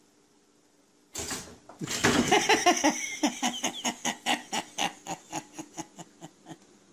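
A person laughing hard: a long run of quick "ha" bursts, about four a second, starting about a second in and slowly fading away.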